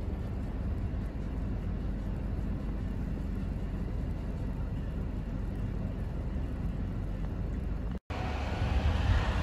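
Steady low rumble of wind on the microphone in a snowstorm. After a brief dropout about eight seconds in, a louder, rougher rumble of snowplow trucks begins and grows toward the end.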